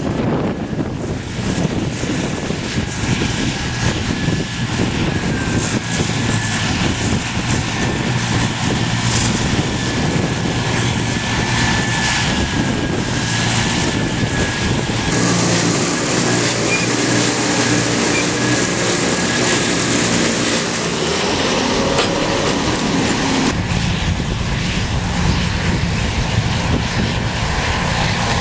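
Diesel tractor engines running steadily, a continuous drone with a thin high whine over it for much of the time; the sound changes abruptly about fifteen and again about twenty-three seconds in.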